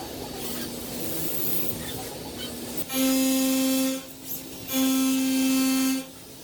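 Steady hiss and hum for about three seconds, then a loud, buzzing held tone sounding twice, each about a second long.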